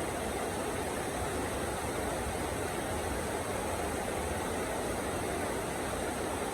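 Heavy rain falling steadily, an even, unbroken rush with no thunder claps.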